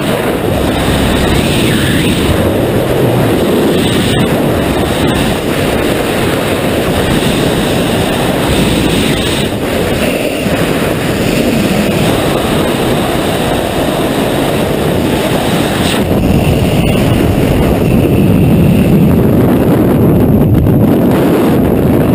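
Freefall wind rushing over a skydiver's camera microphone: a loud, steady roar of buffeting air. The highest part of the rush drops away about two-thirds of the way through.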